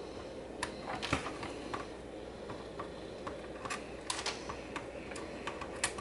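Irregular light clicks and taps of a soldering iron tip and desoldering braid against a keyboard circuit board and its switch pins during desoldering, over a low steady hum. The clicks come in scattered ones and twos and grow more frequent in the second half.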